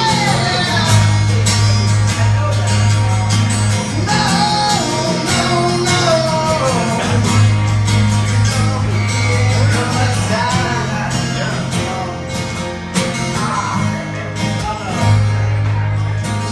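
Live guitar and voice: strummed guitar chords under a voice singing long, sliding notes without clear words.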